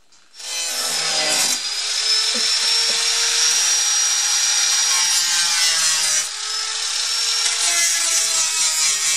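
Electric angle grinder grinding rust off the steel edge of a car door: a steady high whine over a rasping grind. It comes up to speed about half a second in and eases off briefly about six seconds in.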